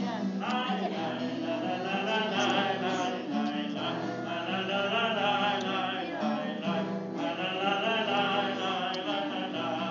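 Voices singing a melody together, led by a man strumming an acoustic guitar, the singing and guitar going on steadily throughout.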